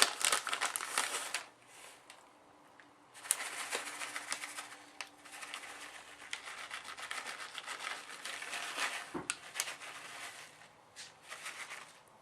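Plastic crinkling and rustling with many small crackles as shredded Monterey Jack cheese is spread over the casserole: a sharp burst at the start, then long stretches of crinkling after a short pause.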